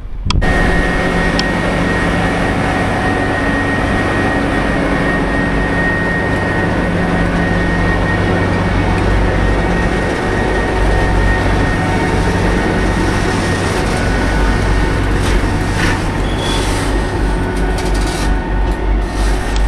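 A train running close by: a loud, steady rumble with a held whine, starting suddenly. Near the end there are scattered sharp clicks.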